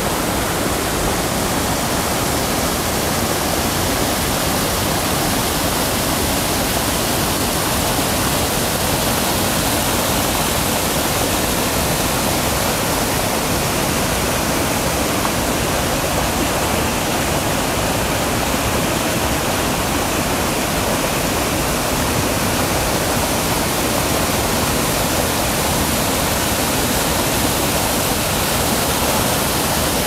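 Torrent of a swollen mountain stream rushing over rocks and small cascades: a steady, loud, unbroken wash of white water.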